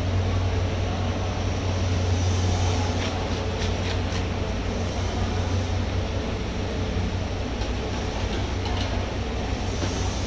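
Steady low machine hum over a constant background noise, with a few short clicks and knocks scattered through it. The hum eases off about four seconds in.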